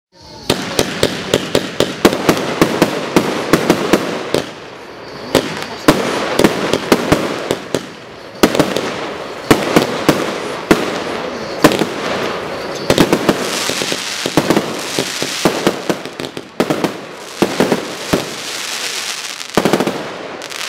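Triplex TXB764 X-Effects firework cake (battery of 30 mm tubes) firing: a rapid string of sharp shots, several a second, over a continuous hiss, with short lulls between volleys.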